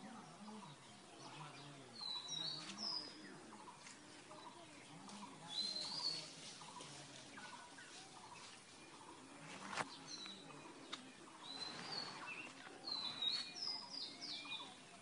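Birds chirping in short, high calls that come in several clusters, with one sharp click about ten seconds in.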